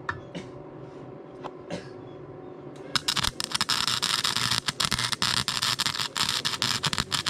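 Harbor Freight flux-core wire welder's arc crackling and sputtering on an exhaust pipe joint, starting about three seconds in after a few faint clicks.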